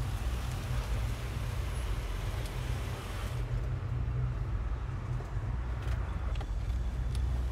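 Mercedes-Benz E-Class sedan rolling up and stopping over a steady low engine rumble. The higher hiss of the tyres drops away a little over three seconds in, and a few light clicks of the driver's door follow near the end.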